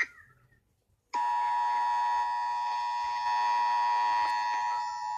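Emergency Alert System attention signal: a steady two-tone alarm that starts about a second in and holds without a break.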